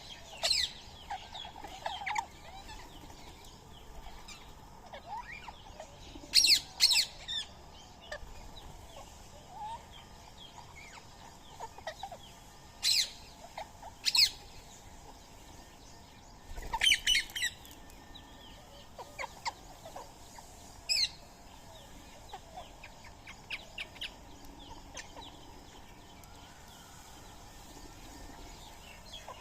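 Rose-ringed parakeets giving short, shrill screeching calls, singly or in quick clusters every few seconds, with quieter stretches between.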